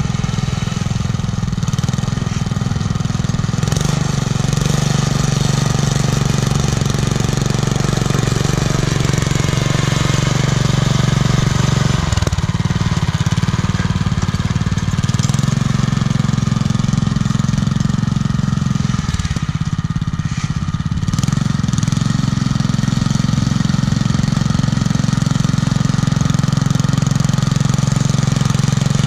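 Small engine of a homemade garden tractor, fitted with a homemade muffler, running steadily under load while pushing snow with a front blade. The engine note drops briefly about twelve seconds in and again around twenty seconds in, then picks back up.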